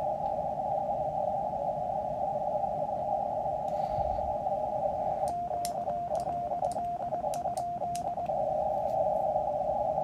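QMX+ transceiver's receiver hiss, narrowed by its CW filter to a band of rushing noise, interrupted from about five to eight seconds in by a short run of Morse code sidetone, a steady tone keyed on and off, with sharp clicks from the iambic paddle. The rig is not actually transmitting: it draws no extra current.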